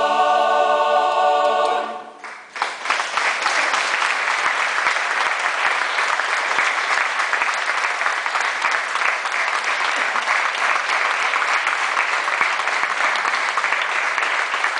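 Mixed choir holding the final chord of a song, cut off about two seconds in. After a brief pause the audience breaks into steady applause.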